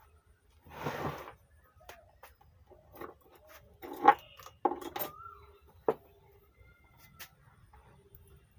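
Scattered metallic clinks and knocks of hand tools working on an amplifier's bridge rectifier as it is unfastened and removed, the loudest knock about four seconds in. There is a brief hiss about a second in.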